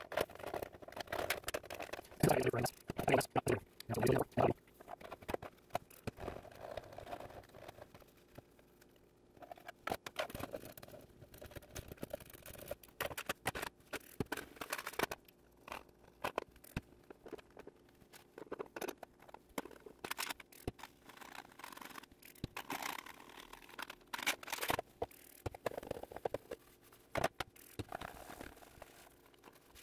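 Hands rubbing, scraping and handling plastic sewing machine parts as they are cleaned: irregular scratching and scuffing broken by light clicks and knocks.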